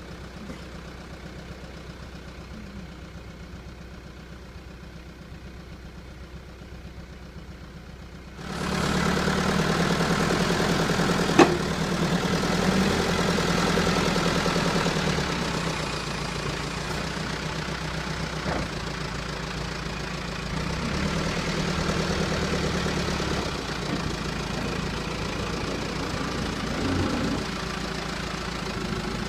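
Backhoe engine idling, then revving up and working under load from about 8 seconds in, with a sharp clank about 11 seconds in.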